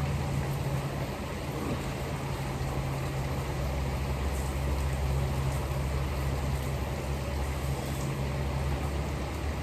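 Steady rain pouring down, an even hiss with no let-up, over a constant low hum.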